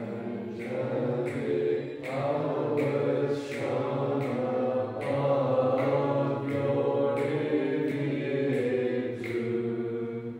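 A group singing an Orthodox dismissal hymn in Byzantine chant, Tone 6 (plagal second mode), the melody moving over a steady low held drone. The singing stops abruptly at the end.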